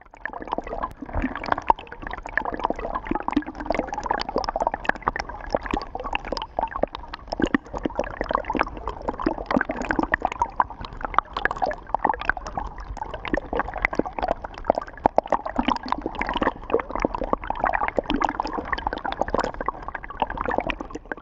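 Shallow stream water gurgling and splashing over pebbles: a steady, dense run of small splashes and bubbling.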